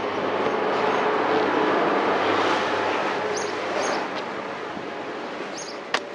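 Heavy EPDM rubber roofing membrane being dragged and handled over an OSB roof deck: a rough rushing, rustling noise that swells over the first few seconds and eases off. A single sharp click comes near the end.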